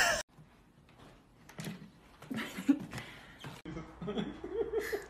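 A loud thump as a pet slams its body into the wall right at the start, then a few soft voice sounds. Near the end the sound changes abruptly to a low steady room hum with a person's voice.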